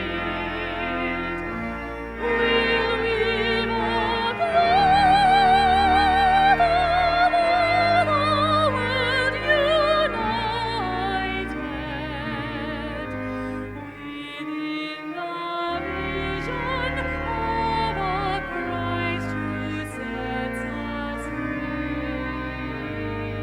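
Classical-style solo singing with a wide vibrato over a sustained keyboard or organ accompaniment. The voice comes in about two seconds in and is loudest through the first half.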